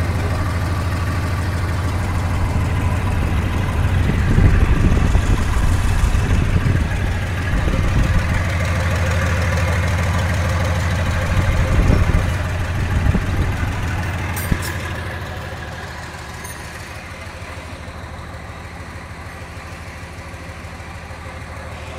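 Freshly overhauled diesel engine of a Mercedes-Benz 1924 truck idling with a steady low hum, growing heavier and louder twice. There is a sharp click about two-thirds of the way through, and the engine sounds fainter over the last few seconds.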